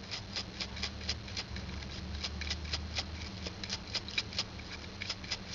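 Stiff synthetic brush scrubbing along the grooves of a Zippo lighter's knurled flint wheel: a quick, uneven run of short scratchy strokes, several a second.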